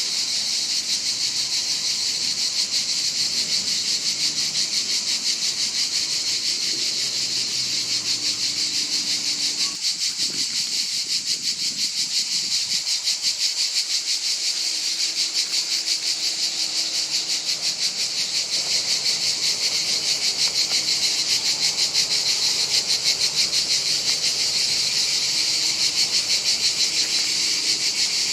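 Chorus of cicadas calling at night: a continuous high-pitched buzzing that throbs with a fast, regular pulse.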